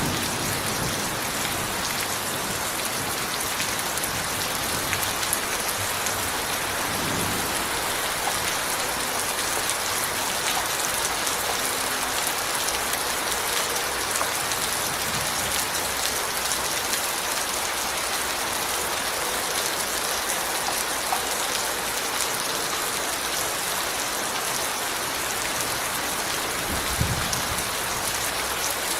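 Steady rain falling on a surface, an even patter with a couple of faint low thumps.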